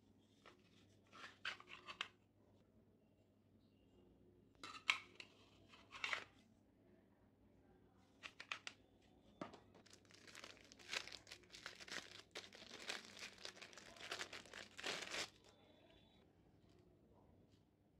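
Hard plastic parts of a small kitchen cutter clicking and rattling in short bursts as it is handled. This is followed by several seconds of dense crinkling of a thin plastic wrapper.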